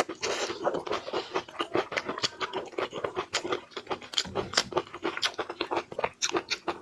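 Close-miked chewing of crunchy food: a rapid, irregular run of crisp crunches, several a second.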